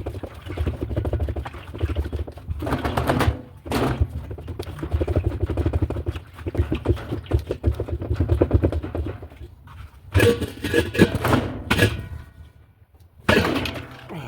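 Rapid, uneven metal knocking and rattling as tools work against a washing machine's seized spin block to free it from the tub, with louder bangs near the end.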